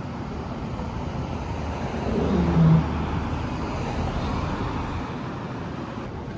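Street traffic noise with a vehicle passing close by. Its engine tone falls in pitch as it goes past, at its loudest about two and a half seconds in.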